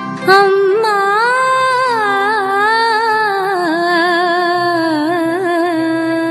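Background music in an Indian style: a single melody with sliding, ornamented notes held over steady accompaniment.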